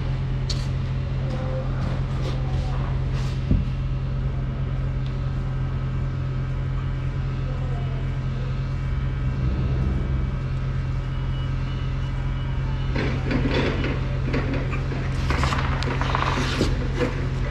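Semi-truck tractor unit's diesel engine droning steadily while driving, heard from inside the cab. A single knock comes a few seconds in, and near the end there is a run of louder rattling.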